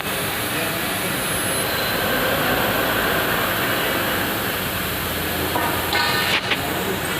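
CO2 MIG welding arc running a continuous bead, a steady dense crackle and hiss. About six seconds in, a short pitched sound and a momentary break interrupt it.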